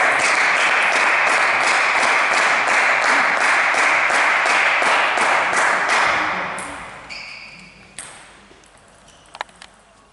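Spectators applauding a won point, with an even beat of about three claps a second, fading out after about six seconds. Near the end come a few sharp clicks of a table tennis ball bouncing.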